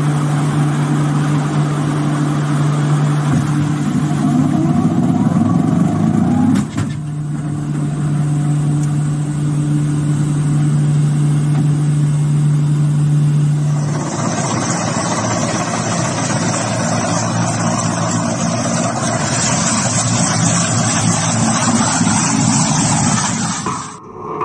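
Aircraft engine drone heard from inside the cockpit during a takeoff from an aircraft carrier: a loud steady low hum, with a sharp jolt about six and a half seconds in. About fourteen seconds in it cuts to a louder, hissing rush of a helicopter landing.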